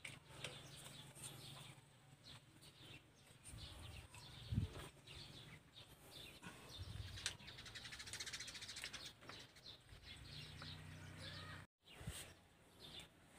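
Faint bird chirping, with a few light metallic clicks from a T-handle socket wrench turning the bolts of an excavator swing motor, and one dull knock about four and a half seconds in.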